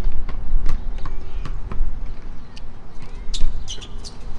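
Basketball game play: irregular sharp knocks of the ball bouncing and players' footfalls on the court, with a few short high squeaks, typical of sneakers, a little over three seconds in, over a steady low rumble.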